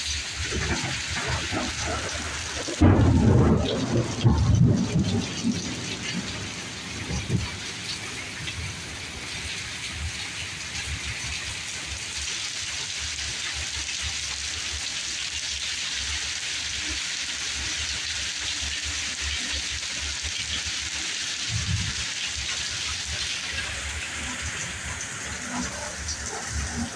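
Hard rain pouring down steadily, with thunder rumbling loudest a few seconds in and rumbling again more faintly about twenty seconds later.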